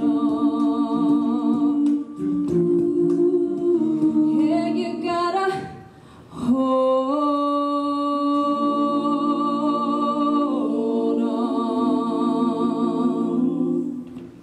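Mixed-voice a cappella group singing the closing chords of a song, the held notes wavering with vibrato. The chords break off briefly about six seconds in, then one long final chord is held and dies away near the end.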